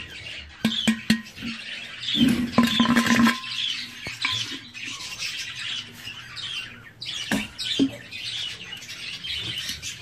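Budgerigars chattering and chirping continually, with a few light knocks and a louder clatter about two to three seconds in.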